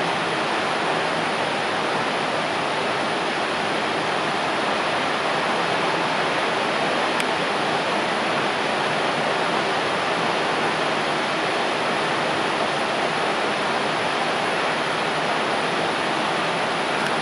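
Athirappilly Falls, a large waterfall in full flow, making a steady, even rush of falling water.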